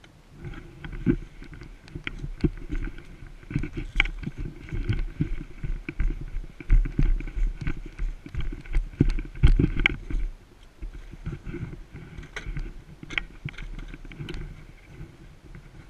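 Irregular knocks, thuds and rubbing rumble from a body-worn action camera as the wearer moves about, loudest between about six and ten seconds in.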